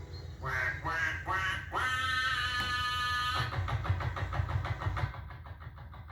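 Four short rising cries and a long held note in a nasal voice. Then a narrowboat's engine starts up with a quick, regular chug, about eight beats a second, which fades towards the end.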